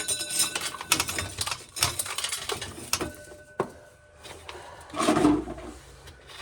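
Corn sheller stripping kernels from an ear of corn: a dense, rapid clatter of kernels and cob against the toothed wheel for about three and a half seconds, then quieter, with a short louder rustle about five seconds in.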